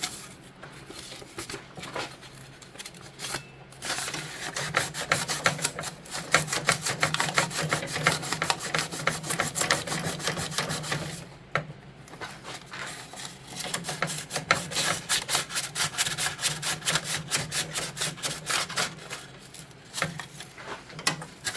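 Fine sandpaper rubbed rapidly back and forth by hand over a snowblower's drive wheel, scouring old rubber residue off its face. The strokes are quick and even, broken by a few short pauses.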